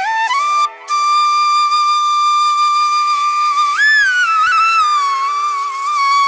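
Background music: a solo flute holding long notes over a steady drone, with a short break about a second in and a pitch bend up and slow glide down around the middle.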